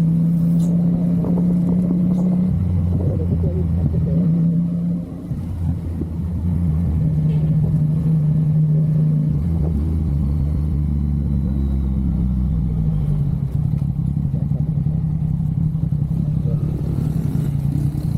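Yamaha MT-09 three-cylinder engine running while riding, its note holding steady with shifts in pitch, and a brief drop in loudness about five seconds in.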